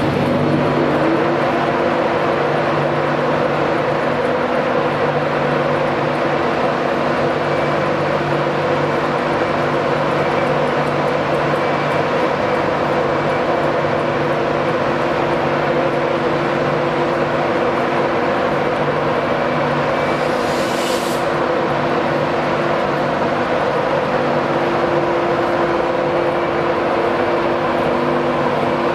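Class 91 electric locomotive at close range with its traction equipment and blowers running: a loud, steady drone with a low, even hum underneath, and a short high hiss about two-thirds of the way through. The locomotive starts to pull away near the end.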